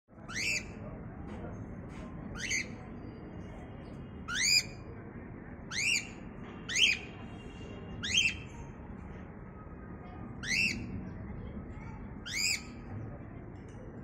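Cockatiels giving short, sharply rising calls, eight in all, spaced a second or two apart, over steady low background noise.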